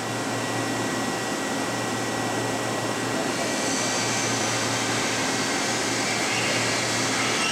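Spindle of a Clausing Storm 1020SF vertical machining center running free at about 4000 RPM: a steady rushing noise with a thin high tone. A higher hiss joins about three and a half seconds in.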